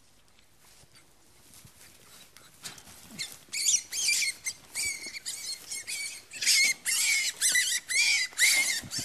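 A wild rabbit squealing in distress as a lurcher catches it: after a quiet start, a rapid, loud run of shrill screams begins about three and a half seconds in and keeps going.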